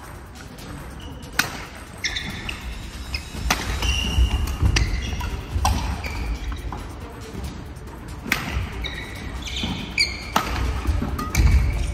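Badminton rally: several sharp racket-on-shuttlecock hits a second or two apart, with short squeaks of shoes on a wooden gym floor, over background music.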